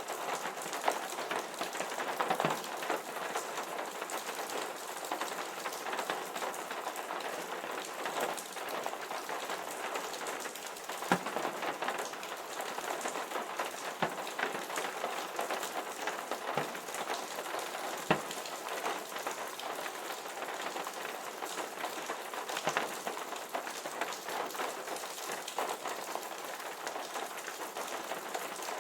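Steady rainfall, an even hiss of many drops, with now and then a single louder drop striking close by.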